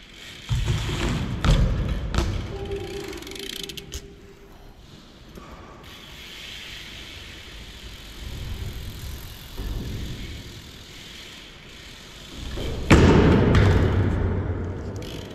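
BMX bike riding on concrete: several sharp thuds of wheels landing and hitting, with tyre rolling noise in between. The loudest, heaviest impact comes near the end, followed by a low rumble that fades.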